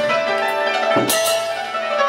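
Yangqin (Chinese hammered dulcimer) ringing with sustained tremolo notes. About a second in, a percussion stroke with a clash of small hand cymbals cuts in and rings on briefly.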